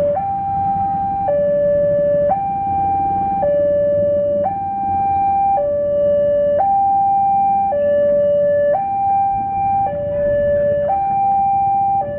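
Railway level-crossing warning alarm sounding its two-tone hi-lo signal: a higher tone and a lower tone alternate, each held about a second, warning of an approaching train while the barrier is down. A low rumble of road traffic engines runs underneath.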